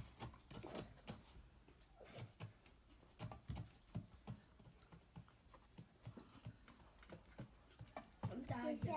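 Faint, scattered clicks and soft taps of small handling noises, with no steady sound behind them.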